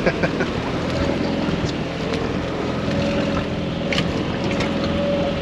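Fishing boat's engine running steadily at trolling speed, with wind and water noise and a few light clicks, one about four seconds in.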